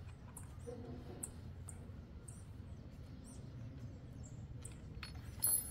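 Quiet background with faint, scattered high chirps and small ticks, and one brief high metallic tick near the end.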